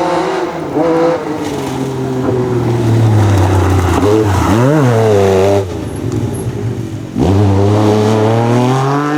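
MG Metro 6R4's three-litre V6 rally engine being driven hard, its pitch climbing and dropping through gear changes. About halfway through the revs spike up and fall back, the note drops and quietens, then it comes back on throttle and climbs steeply near the end.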